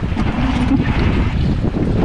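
Strong wind buffeting the microphone, a steady low rumble, with waves washing around a small boat on choppy water.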